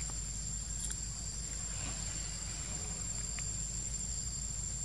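Steady high-pitched insect chorus, a continuous buzz without breaks, over a low steady rumble.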